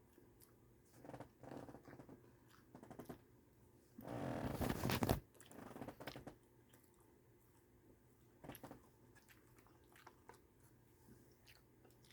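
A person biting and chewing a hamburger dipped in crunchy Heinz Dip & Crunch sauce, with scattered crunching and mouth sounds. The loudest crunch comes about four seconds in and lasts about a second.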